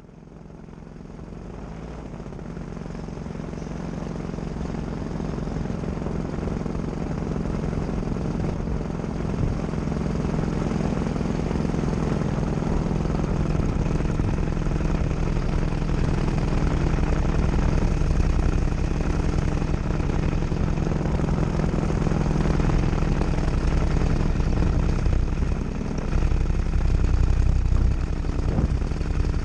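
Paramotor's Nitro 200 two-stroke engine and propeller running steadily, growing louder over the first several seconds before holding at a constant drone.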